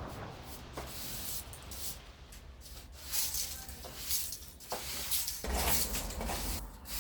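Irregular rustling and scraping, with a few light clicks and knocks, from things being handled.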